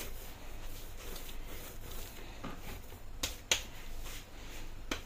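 Hands kneading and pressing soft dough on a wooden chopping board: quiet handling sounds with a few sharp slapping clicks, the loudest two a little past three seconds in and one more near the end.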